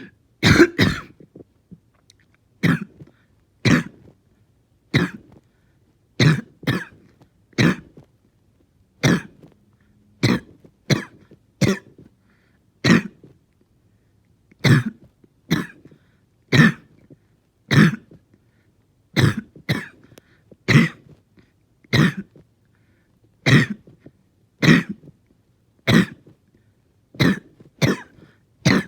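A person in a long coughing fit: single coughs about once a second, a few in quick pairs, with short gaps between.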